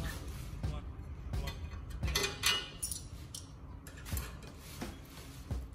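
A spanner clinking and scraping on the bolts of a steel TV wall-mount bracket as they are tightened: a run of irregular metallic clicks.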